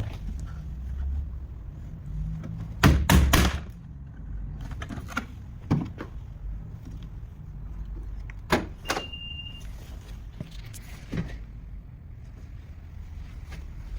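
Scattered knocks and clunks, the loudest a quick run of several about three seconds in, with a short high beep a little past the middle.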